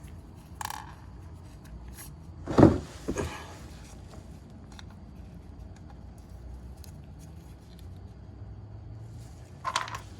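Tools and scooter parts being handled during wheel reassembly: two knocks about two and a half and three seconds in, with a short clink near the start and a few clinks near the end.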